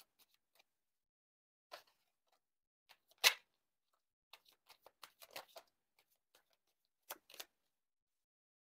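Tarot deck being handled and shuffled in the hands: a string of brief rustles and snaps with silence between them. The loudest comes a little past three seconds in, a cluster follows around five seconds, and two come close together near the end.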